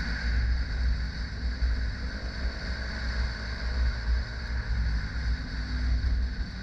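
Motorcycle cruising at a steady speed, heard through a helmet-mounted camera: steady engine and road noise under a heavy low wind rumble.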